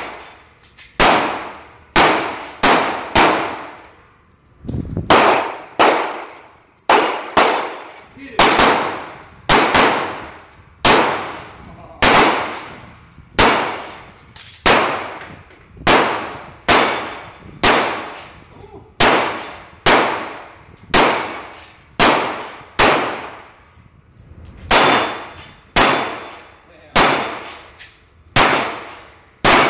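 Handgun shots at an indoor range, about one a second at an uneven pace and sometimes two close together, each sharp crack followed by an echoing tail off the range walls.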